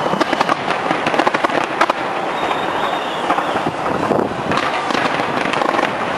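Fireworks going off: dense, rapid crackling in the first two seconds and again about four and a half seconds in, over a steady loud background din.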